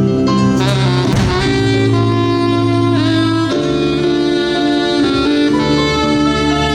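Live jazz band playing, a saxophone carrying the melody over a moving bass line.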